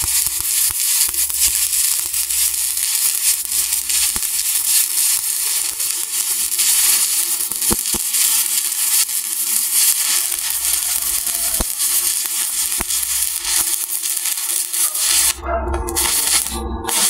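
Stick (SMAW) welding arc running a cap pass with a 1/8-inch E7018 electrode at about 80 amps: a steady crackling sizzle that stops about fifteen seconds in when the arc is broken.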